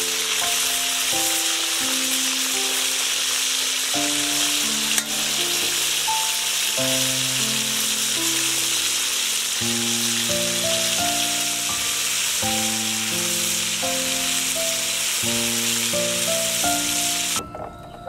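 Chunks of eel sizzling as they fry in hot oil in a wok, a steady crackling hiss that cuts off suddenly near the end. Soft background music of held notes plays underneath.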